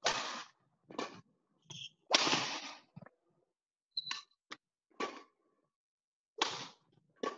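Badminton rally: rackets striking a shuttlecock back and forth, a sharp hit about every second, echoing in the sports hall, with a couple of short high squeaks in between.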